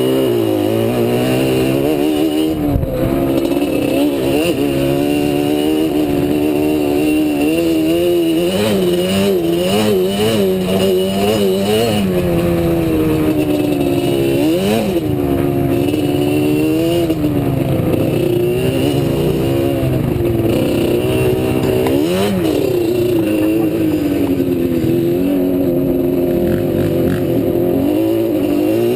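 ATV (quad) engine being ridden off-road, its pitch rising and falling constantly with the throttle, with sharp revs about halfway through and again about three-quarters through.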